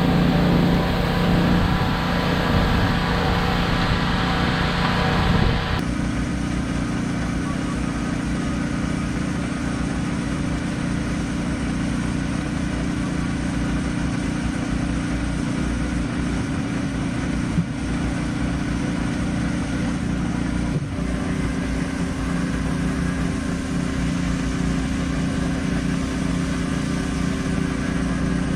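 Pressure washer running while salt is washed off a plow truck: a steady engine drone under a broad spray hiss. The sound changes abruptly about six seconds in and again about twenty-one seconds in.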